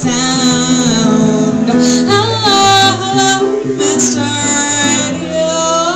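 A woman singing, holding notes with some vibrato, over her own electronic keyboard accompaniment.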